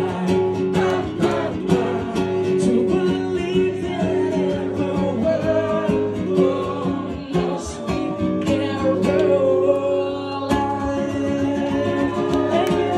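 A man singing live while playing an acoustic guitar.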